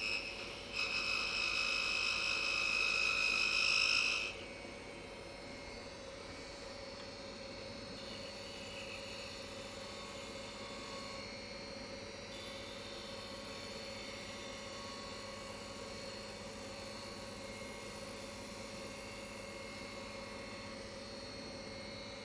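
Wood lathe running with a steady hum while a turning tool cuts the spinning maple for about three seconds near the start, a high, ringing cut; afterwards only the lathe motor hums on.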